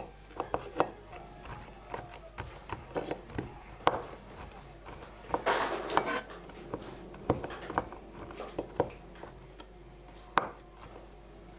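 Kitchen utensils and pots clinking and knocking in irregular strikes, with a brief scraping rush a little past halfway, while homemade laundry soap is prepared.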